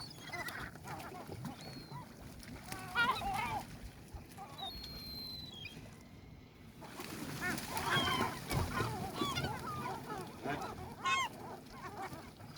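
A flock of seagulls calling: many short, overlapping cries, thinning out for a moment around the middle and busiest in the second half.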